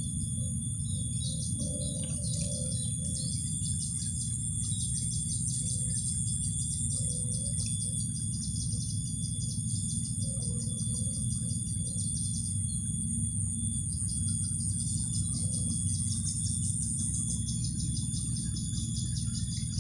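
Marsh insects trilling steadily in a fast, pulsing chorus, with high steady whines and short bird chirps, over a low steady rumble.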